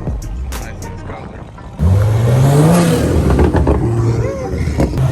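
A car engine revving hard: it comes in suddenly about two seconds in and climbs in pitch, holds, then climbs again near the end, with music underneath.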